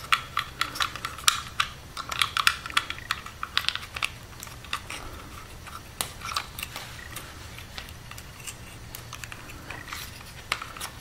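Quick, irregular clicks and taps of wires and plastic wire nuts being pushed into a small wooden box, dense in the first few seconds and sparser later, over a faint steady low hum.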